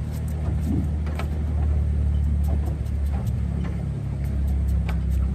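Boat engine idling: a steady low hum, with a few faint ticks over it.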